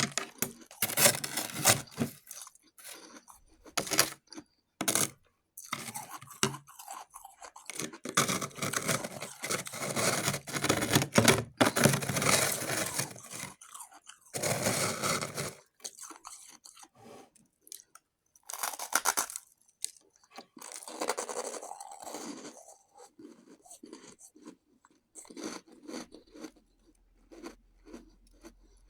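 A person biting and chewing shaved ice: irregular bursts of crunching, heaviest about halfway through and sparser toward the end.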